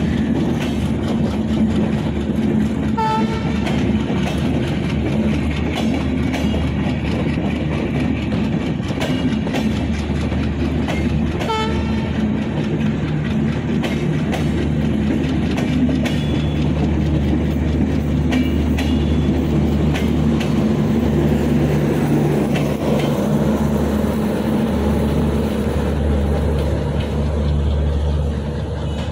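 Bangladesh Railway intercity passenger coaches of a departing express rolling past, wheels clacking over the rail joints. Two brief high tones sound about 3 seconds and 11 seconds in, and a steady low drone grows stronger in the second half.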